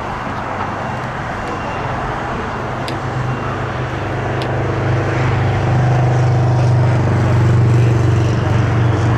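A low engine drone over steady outdoor background noise, swelling over several seconds and at its loudest near the end.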